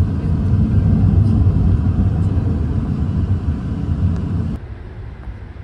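Road noise of a moving car heard from inside: a steady low rumble that drops off sharply about four and a half seconds in.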